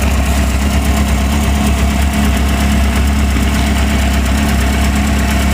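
Suzuki GSX-R 600 inline-four motorcycle engine idling steadily, freshly filled with new oil and warming up after an oil change.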